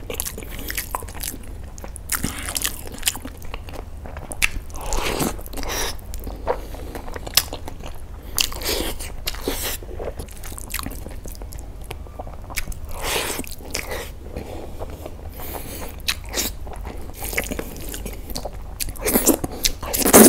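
A person biting and chewing a mouthful of fried rice and chicken in gravy, eaten by hand: a steady run of wet mouth clicks and crunches, with louder bites about five seconds in and again near the end.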